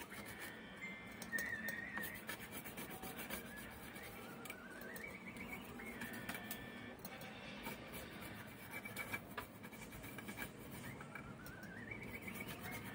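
A small brush scrubbing a graphics card's circuit board with lacquer thinner: soft scratchy rubbing strokes. A whistle-like note, rising over about a second, comes twice over it.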